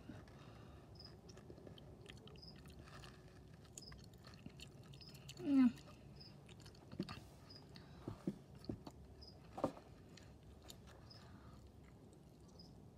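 A person chewing a mouthful of scrambled egg close to the microphone, with soft mouth clicks scattered through it. There is one brief louder sound about five and a half seconds in.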